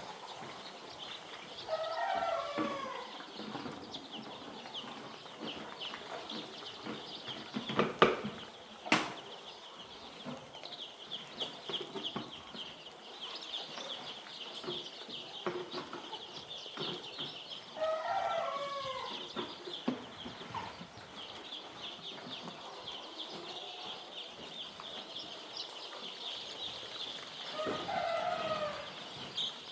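A flock of three-day-old chicks cheeping continuously in a dense high chatter. A louder, drawn-out falling call rises above the chatter three times, about ten seconds apart, and a couple of sharp knocks come about eight and nine seconds in.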